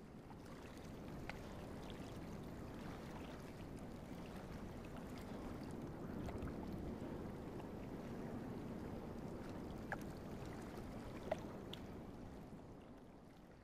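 Soft, steady sound of gently moving water from a shallow indoor pool, with a couple of small plinks near the end, fading out at the close.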